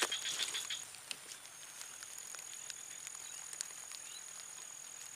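A rubber boot stepping into swamp mud right at the start, then quiet marsh ambience: a steady high-pitched insect drone that pauses briefly about a second in, a short run of quick chirps in the first second, and scattered faint ticks.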